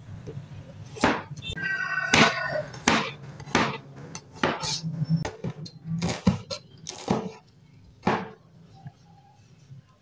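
Kitchen knife slicing shallots, garlic and chillies on a plastic cutting board: a run of irregular knocks of the blade on the board, which thin out after about eight seconds.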